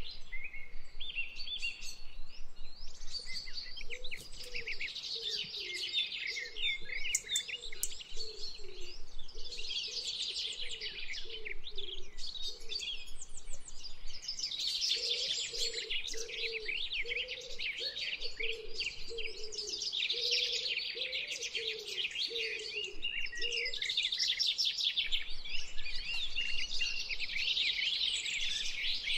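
A chorus of many small birds chirping and twittering without pause, with a lower, repeated call sounding underneath for long stretches.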